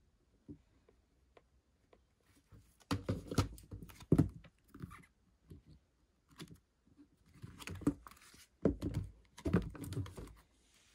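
A boxed DVD set and its photobook handled: card and paper rustling and sliding, pages flipping, and a few sharp knocks as the pieces are moved and set down. It comes in two bursts, a few seconds in and again near the end.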